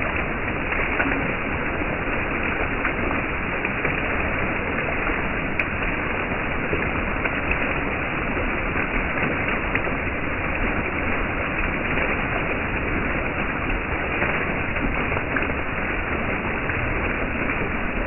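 Water jets from a fountain of Korean earthenware jars (onggi) falling back and splashing onto the jar lids and the wet ground: a steady, even splatter of falling water, like rain.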